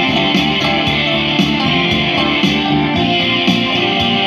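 Electric guitar playing the instrumental close of a song after the last sung line, amplified through portable PA speakers.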